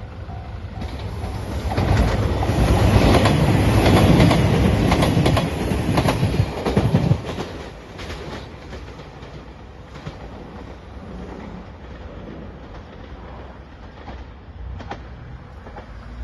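Diesel limited express train passing close by over a level crossing: its running noise builds to a loud rush about two seconds in, with rapid clickety-clack of wheels over rail joints, then drops off after about seven seconds to a lower rumble as it moves away. A level crossing warning bell rings faintly at the start and stops as the train arrives.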